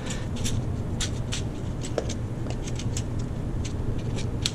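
Small boxes of primers being handled and set onto a shelf: a run of light, irregular clicks and taps, the sharpest near the end, over a steady low hum.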